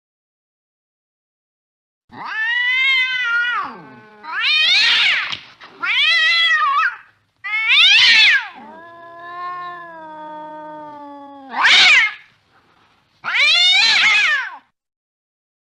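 Cat yowling and meowing, starting about two seconds in: six loud, drawn-out calls that bend up and down in pitch. Between the fourth and fifth calls comes a quieter, lower, longer moan.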